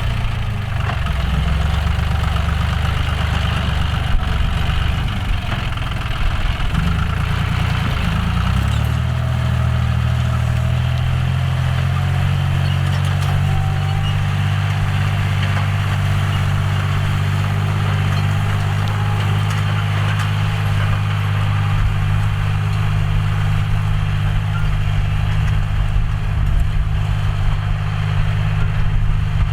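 John Deere 5045D tractor's three-cylinder diesel engine running steadily while ploughing; its engine note shifts and wavers about a quarter of the way in, then settles to an even pitch.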